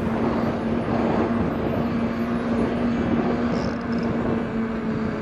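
Riding noise on an e-bike: wind rumbling over the microphone with a steady low hum that holds one pitch.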